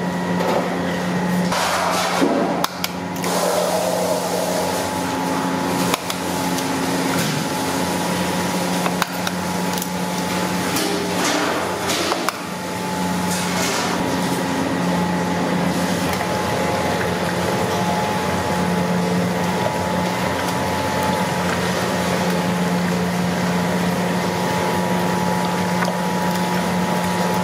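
Steady machine hum with a rushing noise, broken by a few sharp knocks and clicks in the first half.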